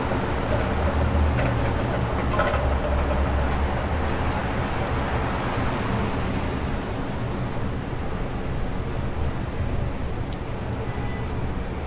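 City street traffic, with a steady low engine sound from passing vehicles that is strongest in the first half and eases off toward the end.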